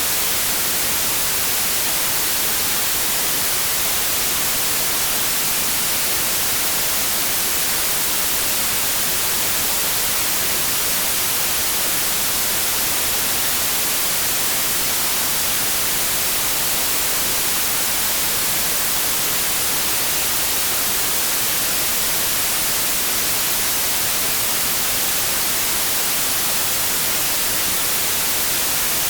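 Steady white noise: an even, unchanging hiss like radio static, with no tones or breaks.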